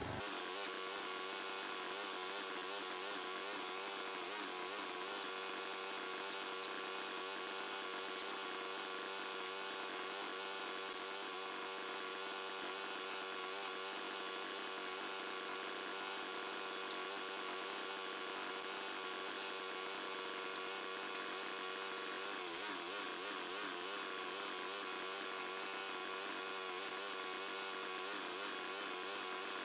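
Small gasoline engine of a hydraulic log splitter running steadily, a constant hum whose pitch wobbles briefly about three-quarters of the way through.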